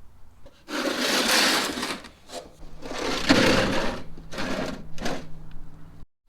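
A small motorised tool running in four bursts: two of about a second and a half each, then two short ones.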